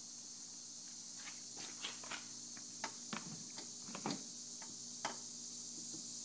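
Footsteps and handling: scattered light clicks and a few soft thuds, over a steady high hiss and a faint low hum.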